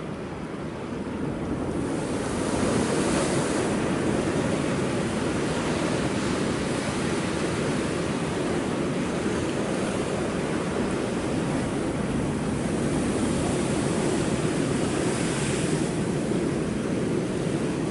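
Big ocean waves breaking and surging on rocks, a continuous roar of surf that swells about two seconds in and crests again near the middle and towards the end, with some wind on the microphone.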